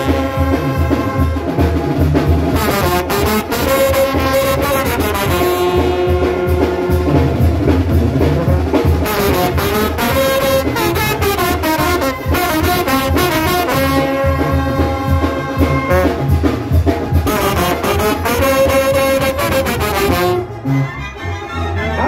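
Banda trombones playing a loud melody in sustained notes over a steady low beat from the rest of the band. The playing drops away about a second and a half before the end.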